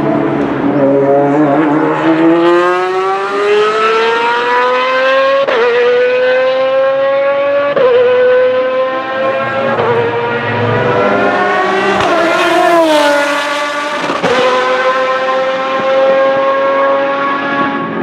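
Lamborghini Murciélago R-SV GT1's 6.5-litre V12 race engine accelerating hard through the gears. Its pitch climbs and drops back at each of about four quick upshifts.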